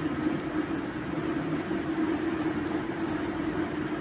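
Steady background hum with a hiss, unchanging throughout, like an appliance or fan running.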